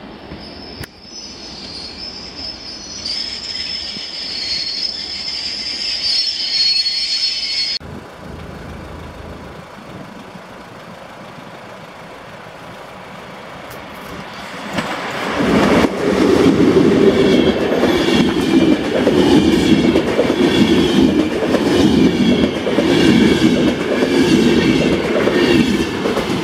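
An EN57 electric multiple unit running into the platform with a high-pitched wheel and brake squeal that grows louder. After a cut, a locomotive-hauled Intercity passenger train passes at speed from about halfway through, loud, its carriage wheels clattering rhythmically over the rail joints.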